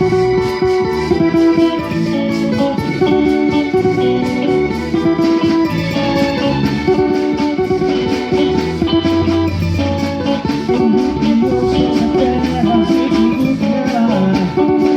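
Live gospel band playing an instrumental swingueira passage: guitar over bass, keyboards and a steady drum and percussion beat.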